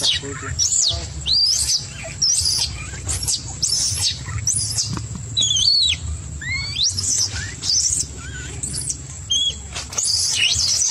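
Baby macaque screaming in distress: a run of short, high-pitched, wavering squeals, about two a second, over a low steady hum.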